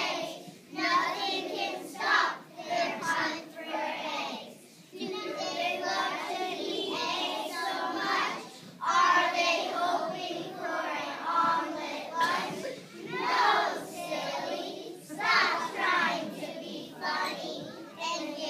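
A group of young schoolchildren singing together in unison, phrase after phrase with short breaks between them.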